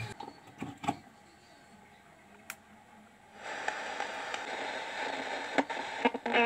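A few sharp handling clicks, then from about halfway a steady hiss of FM static from the just-repaired radio's speaker, with more clicks near the end.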